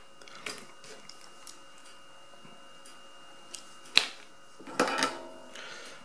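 Small tools being handled on a workbench: a few light clicks near the start, a sharp click about four seconds in and a short clatter with rustle around five seconds, as the soldering iron is picked up and brought to the board. A faint steady high tone sits under it throughout.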